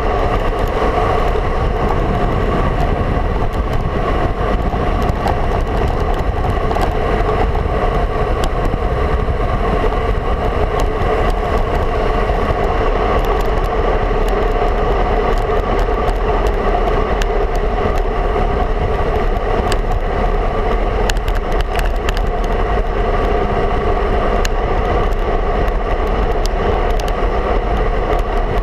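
Steady rush of wind and tyre noise from a road bike rolling at speed, the wind buffeting a handlebar-mounted camera's microphone.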